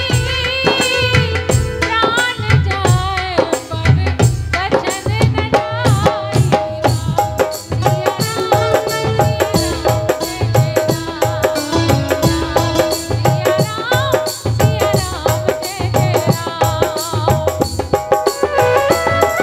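Rajasthani devotional folk song performed live: a woman singing into a microphone with vibrato, over melodic instrumental accompaniment and a steady drum beat.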